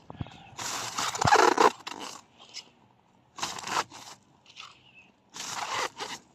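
Woven plastic sack rustling and scraping in three bursts as it is handled and cabbage heads go into it, the first and longest burst the loudest, with a dull thump about a second in.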